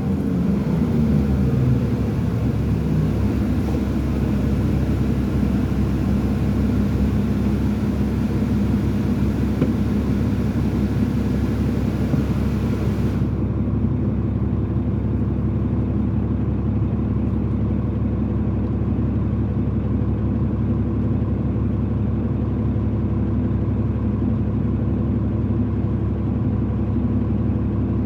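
A 2005 New Flyer D40LF bus's Cummins ISL diesel engine and ZF six-speed automatic drivetrain running under way, heard from inside the bus. The engine pitch falls over the first couple of seconds, then holds steady.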